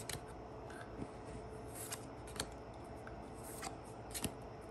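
Pokémon trading cards sliding and flicking against each other as they are moved one by one through a hand-held stack: about half a dozen short, faint swishes and ticks.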